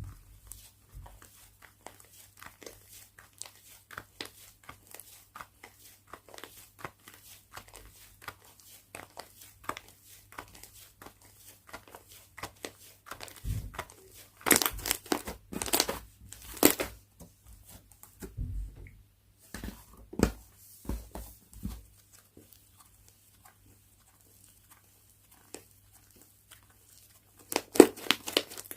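Hands squishing and stretching slime: a stream of small crackling clicks and pops, with louder runs of popping about halfway through and again near the end.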